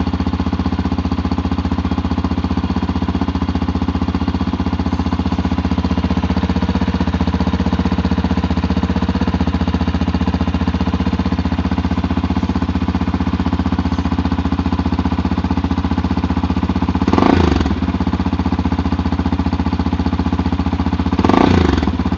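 Yamaha Tricker XG250's air-cooled single-cylinder engine idling steadily through a K2-tec aftermarket muffler, with two short throttle blips near the end, about four seconds apart.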